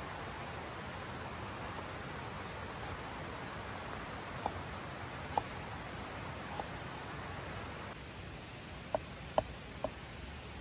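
A cleaver chopping carrot on a wooden board: a few sharp taps, three around the middle and three more near the end. Under them an insect drones steadily at a high pitch and stops abruptly about eight seconds in, leaving a faint steady hiss.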